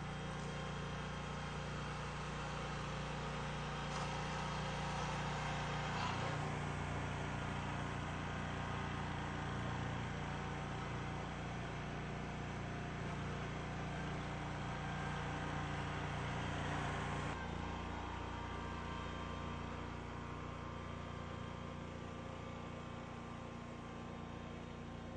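Engines of a small asphalt roller and road-repair machinery running steadily. The engine note changes abruptly about six seconds in and again about seventeen seconds in.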